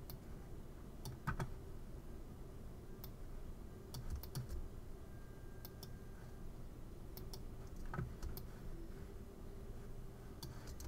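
Faint, scattered clicks of a computer keyboard and mouse, often a second or more apart and sometimes in quick pairs or triplets, as shapes are drawn with the pen tool.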